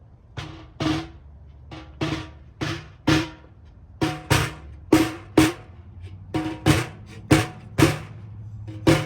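Tree fungi struck like drums, tapped out as a rhythmic beat: short hollow knocks with a brief pitched ring, about two to three a second and in uneven groups, over a low steady hum.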